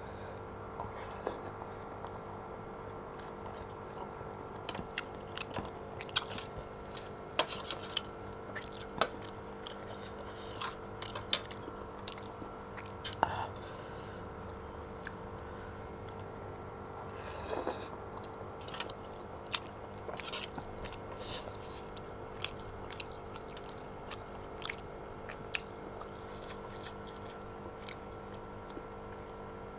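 Close-miked chewing of chicken noodles, with many short wet mouth clicks and smacks scattered irregularly, over a steady electrical hum.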